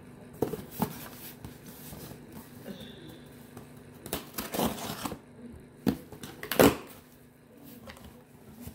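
Scissors snipping and slicing through packing tape on a cardboard box: a few sharp snips early on, a longer scraping cut about four seconds in, and several sharp strokes a little later, the loudest about two thirds of the way through. Near the end the cardboard and a paper label are rustled and pulled.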